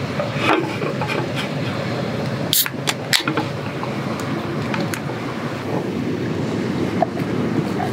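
Steady rushing outdoor noise, like wind or surf, with a few sharp clicks about two and a half to three seconds in. Near the end, beer is poured from a can into a glass.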